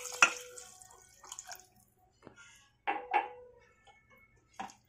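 Water poured from a glass into a steel pot of simmering vegetables, splashing for about a second. A wooden spatula then stirs the pot and knocks twice against its side about three seconds in, with one more knock near the end.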